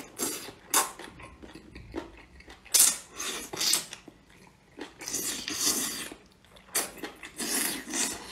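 Slurping up long strips of duck intestine: a series of noisy sucking slurps, several lasting up to a second, with chewing between them.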